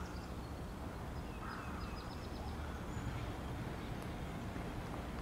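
Outdoor background: a steady low rumble with birds chirping over it, including a quick series of short, high chirps about two seconds in.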